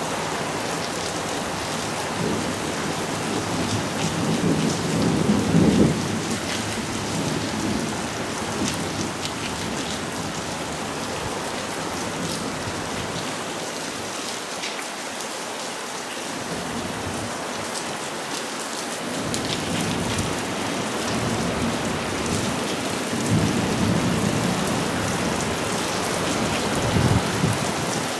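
Steady heavy monsoon rain pouring on foliage and surfaces, with close drops ticking. Thunder rumbles and swells a few seconds in, and again twice in the last third.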